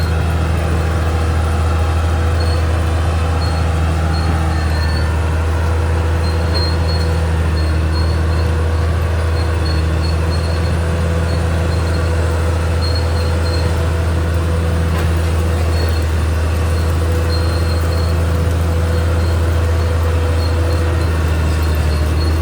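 Caterpillar D6R XL bulldozer's diesel engine running steadily at an even pitch and level.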